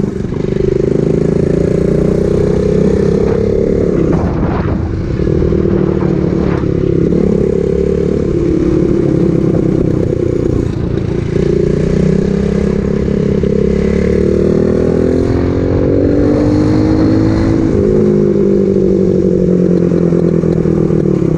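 110cc four-stroke single-cylinder engine of a super pocket bike running under way, its top end freshly rebuilt and still being broken in. It runs fairly evenly at first, then its pitch climbs for a few seconds and drops sharply near the end.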